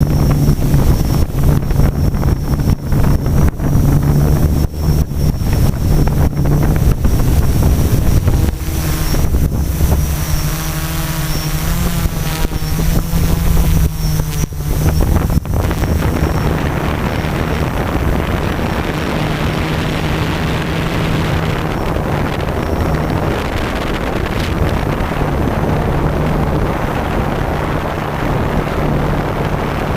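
A steady motor hum with wind buffeting the microphone, as heard from an onboard camera. In the first half there are frequent sharp knocks and a high thin whine; about halfway through these stop and an even rushing noise takes over.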